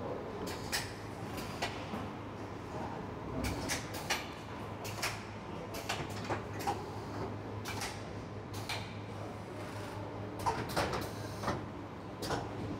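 Automated MCCB test station and conveyor line running: irregular sharp clacks and knocks from the fixtures, about two a second and sometimes in quick clusters, over a steady low machine hum.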